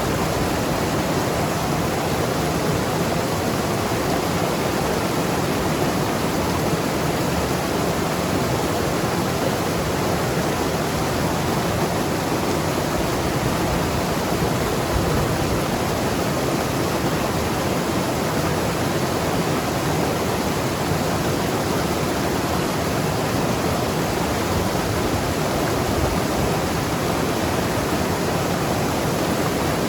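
Mountain river rushing and gurgling over rocks, a steady even rush of water.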